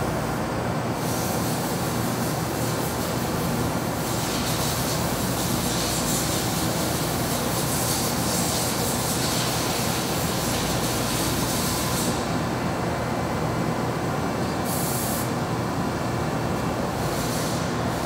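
Okuma Multus B200-II multitasking CNC lathe milling a metal block with its milling spindle under flood coolant: a steady machine noise with the hiss of coolant spraying onto the cut. The hiss swells in the middle and drops back near the end.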